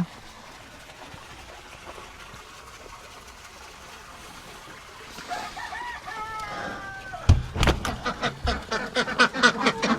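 A chicken calling: a few short notes, then a longer falling one. About seven seconds in comes a sharp thump, followed by a quick run of clicks and rattles.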